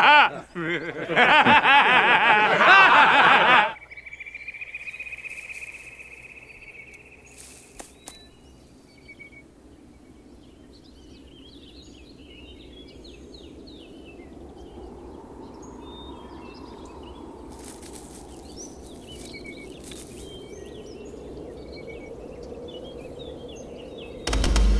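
Men laughing for the first few seconds, then quiet woodland with birds chirping and a high note held for a few seconds. A soft, low music score swells in about halfway, and a sudden loud low boom comes at the very end.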